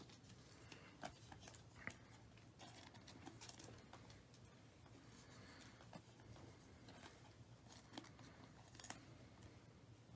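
Faint handling noise of glossy Panini Prizm basketball trading cards being slid and shuffled between the hands, with soft scattered clicks as the cards touch each other and the table.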